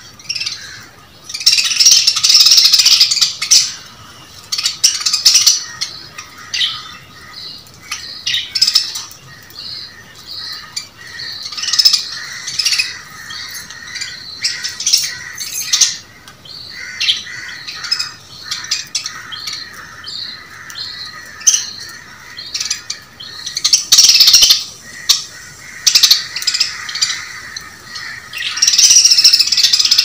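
A group of caged budgerigars chirping and chattering without pause, broken by several loud, harsh bursts of calls as they squabble while feeding.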